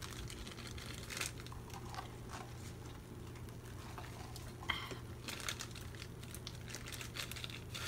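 Soft rustling with a few light clicks and taps of handling, over a steady low hum.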